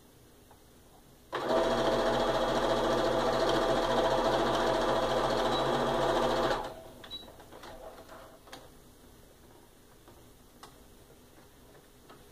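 Sewing machine stitching a seam at a steady speed for about five seconds. It starts just over a second in and stops abruptly, followed by a few faint clicks.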